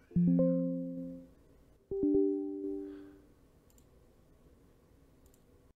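Two strummed chords on a plucked string instrument, about two seconds apart, each ringing out and fading over a second or so.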